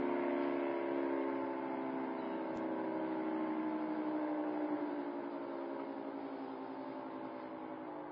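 Air-raid / tornado warning siren winding down: its wailing tone slides slowly lower in pitch and fades steadily.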